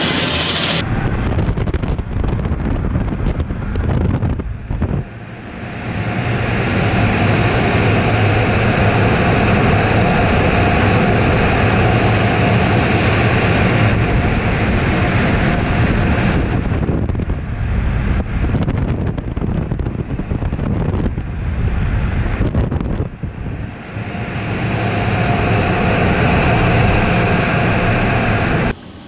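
Touchless car wash blasting the truck's roof with air and water, a loud steady rush with wind buffeting on the windshield-mounted camera's microphone. It eases briefly three times, around 4, 17 and 23 seconds in, and cuts off abruptly near the end.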